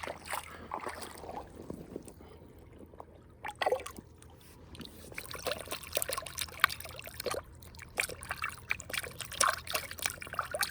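Creek water trickling, with small irregular splashes.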